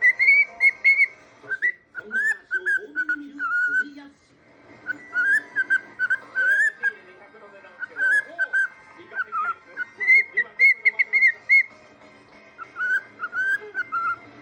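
Cockatiel whistling a tune: phrases of short, bouncing notes, each phrase a few seconds long with brief pauses between them.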